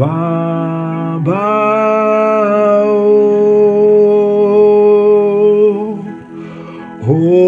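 A man singing a Yoruba worship song in long, drawn-out held notes over backing music, beginning with the word "Baba".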